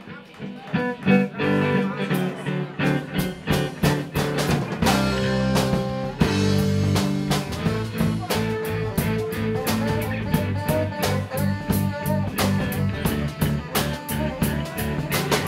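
Live rock band playing an instrumental passage, with electric bass, electric guitar and drum kit.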